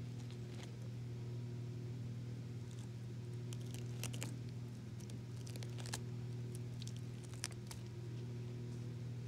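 Cat chewing and rubbing its face on the plastic bristles of a wall-mounted cat self-grooming brush: scattered soft crackles and clicks, most of them in the middle, over a steady low hum.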